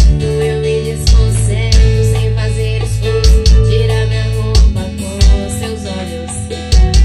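Recorded music with guitar and deep bass thumps, played loud through a Philco speaker box.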